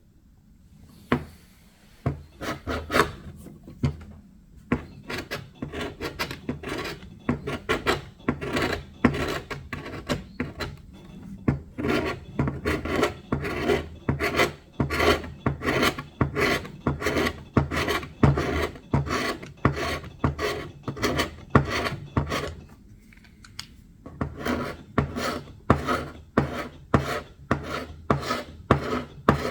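Hand strokes of abrasive work on wood, stripping old paint and finish: a steady back-and-forth rasping at about two to three strokes a second, with a short pause a little before the end.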